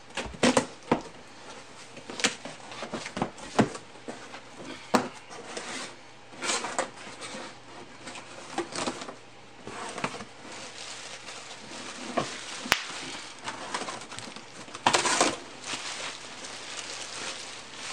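Cardboard shipping box being opened by hand: the flaps are pulled apart and bent back, with irregular scraping and rustling, scattered sharp knocks, and the crinkle of bubble-wrap packaging inside.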